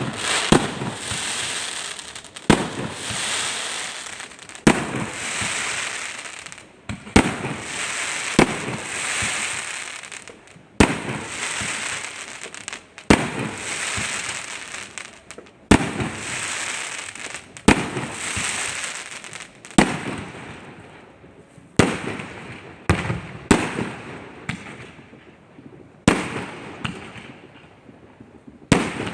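Aerial fireworks going off: a sharp bang about every two seconds, each followed by a hissing tail that fades over a second or two. In the later part the bangs come closer together and their tails are shorter.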